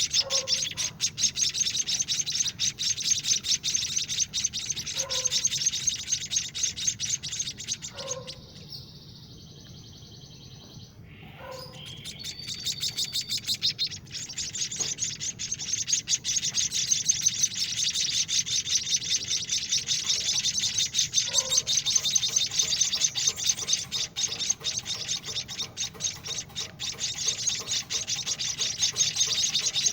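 Week-old emprit kaji (white-headed munia) nestlings begging while being hand-fed: fast, continuous high chirping that stops for about three seconds about a third of the way in, then resumes, with a few short lower calls falling in pitch now and then.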